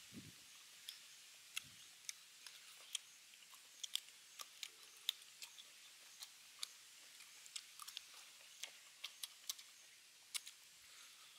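Close-up eating sounds of fried Muscovy duck: irregular crisp chewing clicks and smacks, one to three a second, over a faint steady hiss.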